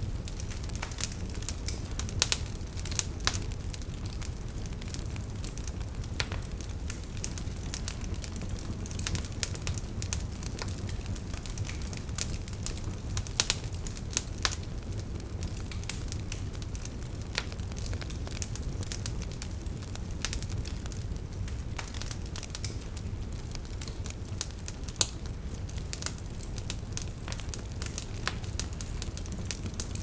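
Wood fire crackling: irregular sharp pops and snaps over a steady low rumble.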